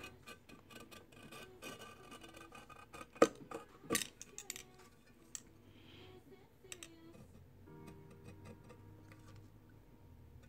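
Faint background music with scattered light clicks and scrapes of a box cutter's blade cutting along a glued fabric seam on a plastic tumbler. The sharpest clicks come about three seconds in and again about a second later.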